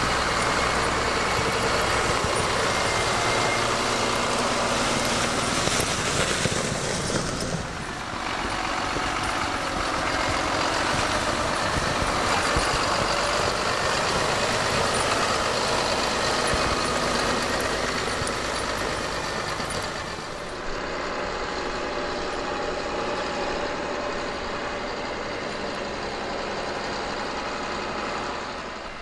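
IVECO 4x4 truck's diesel engine running steadily as it drives through snow, with two abrupt changes in the sound, one about a quarter of the way in and one about two-thirds in.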